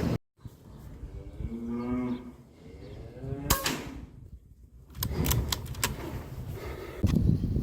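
A cow mooing once, a single call of about two seconds, followed by a sharp crack. Scattered clicks and rustling come later.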